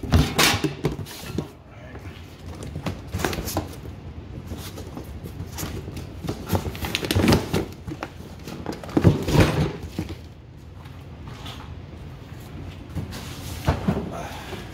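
Cardboard boxes and household items being handled and shifted: rustling and scraping cardboard with a series of irregular knocks and thumps, the loudest near the start and about seven and nine seconds in.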